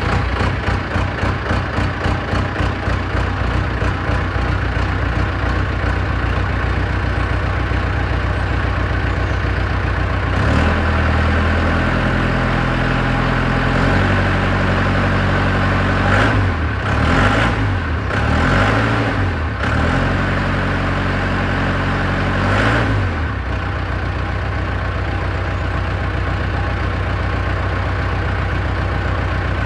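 Lovol M504 farm loader's diesel engine idling just after start-up, running through its newly fitted upright exhaust and silencer. From about ten seconds in it is revved up and down several times for some twelve seconds, then settles back to a steady idle.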